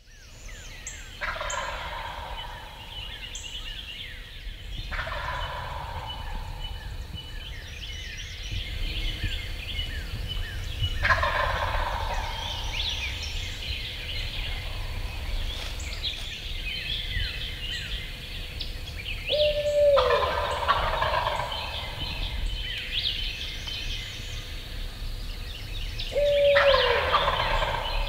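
A wild turkey gobbler gobbling about five times, every five or six seconds, each gobble a rattling call that falls in pitch. Songbirds chirp continuously behind it, and a short lower call comes just before two of the gobbles.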